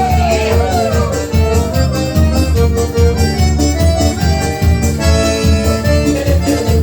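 Live forró music in an instrumental passage: an accordion playing the melody over a steady low drum beat.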